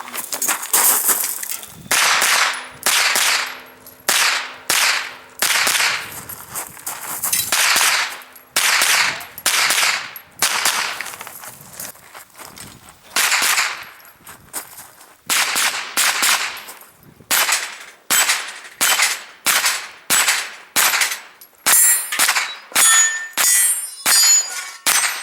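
Pistol-caliber carbine firing a long string of rapid shots, mostly about two a second with a few short pauses, with steel targets ringing when hit.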